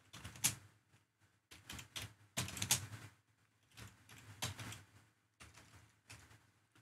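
Typing on a computer keyboard: quiet keystrokes in short bursts with pauses between.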